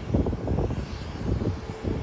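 A Dassault Falcon 20 business jet's twin rear-mounted General Electric CF700 turbofans, heard as a low, uneven rumble as the jet rolls out down the runway after landing.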